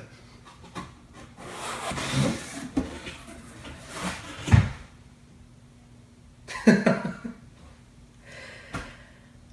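Rustling and scraping as packing is pulled out of a large cardboard shipping box, with a loud thump about four and a half seconds in and a short voice sound around seven seconds.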